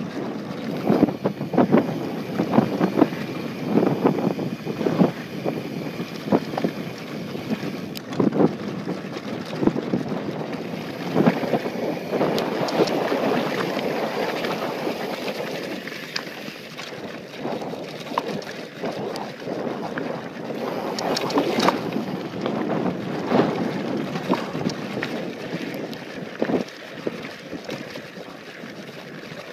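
Mountain bike descending a dirt and rocky trail: a steady rush of tyres on loose ground and wind on the microphone, broken by many sharp knocks and rattles as the bike goes over rocks and bumps.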